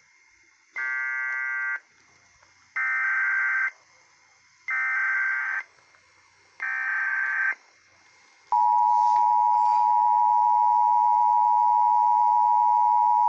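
Emergency Alert System broadcast tones: four separate bursts of about a second each of shrill digital data tones (the SAME header that encodes the alert), then, about eight and a half seconds in, the steady two-tone EAS attention signal, which holds for about five seconds.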